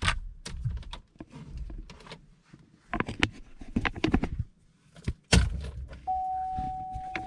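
Keys jangling with clicks and rustling as someone gets into a car, a loud thunk about five seconds in, then a steady electronic chime tone from the car starting near the end.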